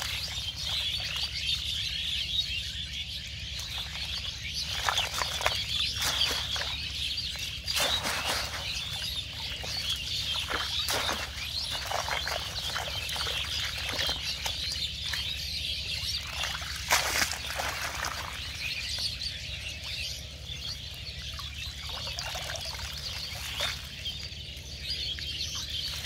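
A chorus of small birds chirping continuously, with irregular splashes and dripping water as a wet mesh fish trap is hauled up out of shallow water.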